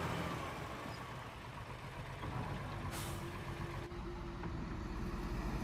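Heavy truck engine running with a low rumble, with a short air hiss about three seconds in.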